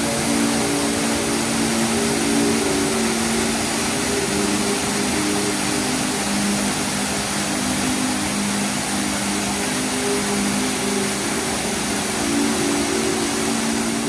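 Waterfall pouring with strong force: a steady, even roar of falling water. Under it, background music plays slow, held low notes that change every second or two.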